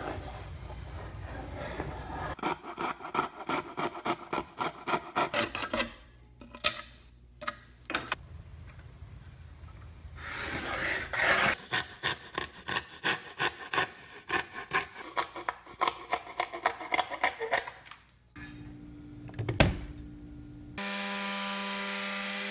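Plywood being cut by hand with a coping saw: quick back-and-forth strokes, about three a second, in several runs with short pauses. Near the end an electric sander starts running with a steady hum.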